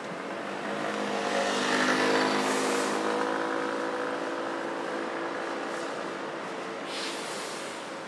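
Street traffic: a motor vehicle passes close by. Its engine hum and tyre noise swell to a peak about two seconds in, then fade slowly into the general hum of the road.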